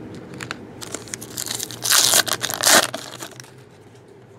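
A foil trading-card pack wrapper crinkling and tearing open, loudest in two bursts about two seconds in, with lighter rustling around them.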